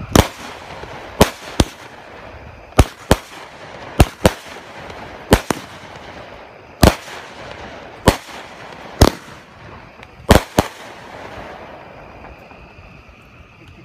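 Fireworks going off: a series of sharp bangs, many in close pairs, about one pair every one and a half seconds, with a hiss between them, stopping about eleven seconds in.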